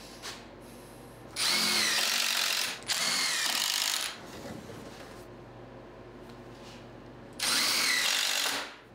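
Cordless impact driver driving long wood screws through a 2x4 rail into the framing. It runs three times: two bursts back to back starting about a second and a half in, and one more near the end.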